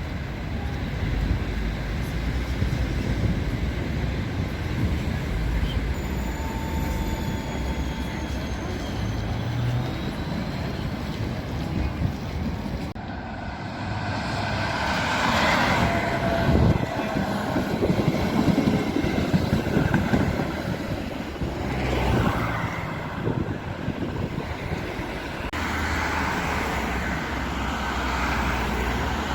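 City street traffic with trams running, a steady low rumble that grows louder in the middle as a tram passes. The sound changes abruptly twice, about 13 seconds in and again near 25 seconds.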